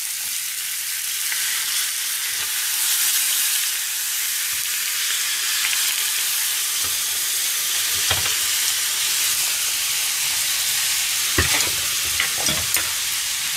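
Bone-in chicken thighs sizzling in oil in a frying pan while white wine is poured in, the hiss a little stronger a few seconds in. A few light knocks near the end.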